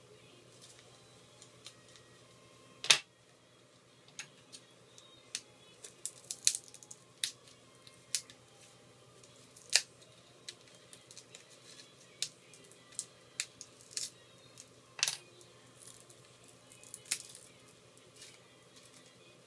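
Irregular sharp clicks and taps of small tools and iPhone 4 parts being handled during disassembly, one much louder click about three seconds in.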